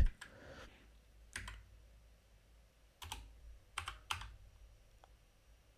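Computer keyboard keys pressed a few times, sparse and quiet: a single keystroke, then after a pause three more in fairly quick succession and a faint tick.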